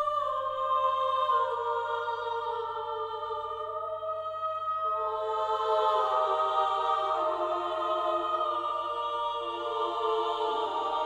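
Background film music: slow, sustained chords that shift every second or two, growing fuller about five seconds in.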